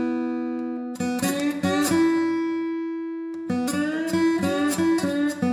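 Background music of picked acoustic guitar, with notes and chords left to ring and fade between short runs of plucked notes.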